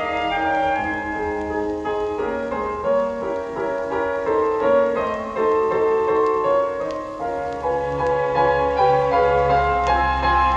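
Piano music played back through a Dynaco A-35 bookshelf loudspeaker fitted with new crossover network parts, with deeper bass notes joining about three quarters of the way through.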